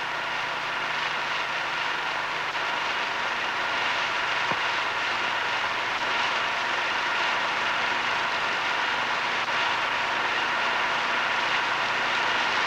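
Steady hiss with faint steady hum tones and no distinct events, the background noise of a worn old film or tape soundtrack.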